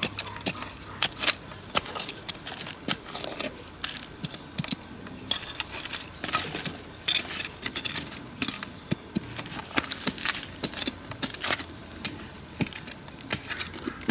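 A machete blade digging into dry, stony soil: irregular chopping and scraping strokes with small stones and clods knocking and rattling. A faint steady high tone runs underneath.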